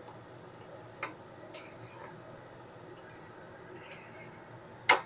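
Metal spatula scraping and tapping against an aluminium kadai while stirring wilted amaranth greens and potatoes: a few separate scrapes and clicks, the loudest about one and a half seconds in.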